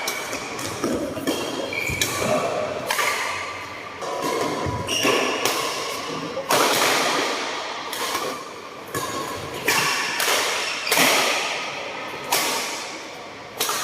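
Badminton rally: rackets strike a shuttlecock about once every one to one and a half seconds, each hit a sharp smack that rings on in the hall, with short squeaks between hits.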